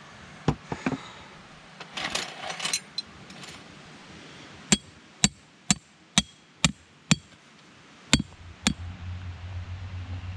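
A metal tent stake being hammered into hard, stony ground: eight sharp, ringing strikes about half a second apart, starting about halfway through. Before them come a few knocks and metallic clinking.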